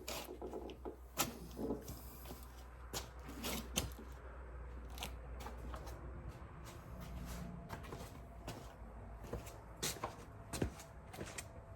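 Hands working a drive belt onto the rear spindle pulley of a Country Clipper mower deck: scattered sharp clicks and knocks of metal parts with rustling in between, over a steady low hum.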